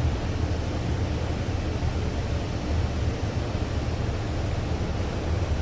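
Air spray gun hissing steadily as it sprays primer surfacer at low air pressure to build up a crimped texture, over a steady low rumble.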